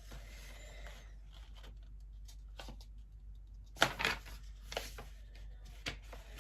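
Faint rustling and handling of a paper sheet, with a few short crackles about four seconds in and again near the end.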